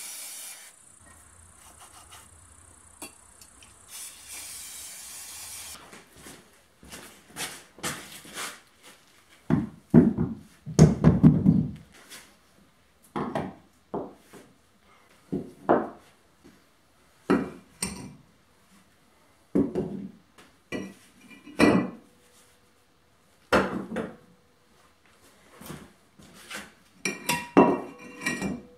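Heavy steel car parts (half axles, brake discs and calipers) set down one after another on a concrete floor, a string of separate clunks and clanks about a second or two apart. They follow a brief hiss and some faint rubbing.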